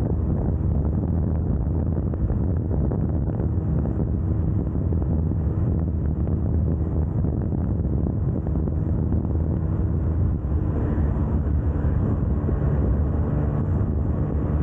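Wind rushing over the microphone at speed, over the steady drone of a KTM Duke 390's single-cylinder engine.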